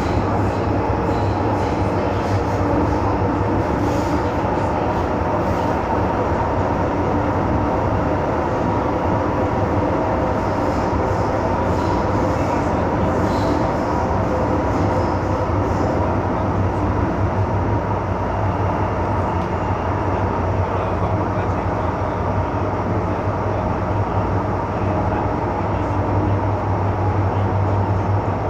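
Cabin noise inside an MTR M-Train electric multiple unit running at steady speed: a constant rumble with several steady humming tones.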